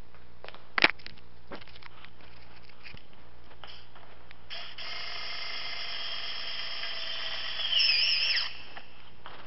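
Cordless electric screwdriver running for about four seconds, driving a screw into a scooter's footboard, its whine louder and wavering in pitch near the end. A sharp knock about a second in.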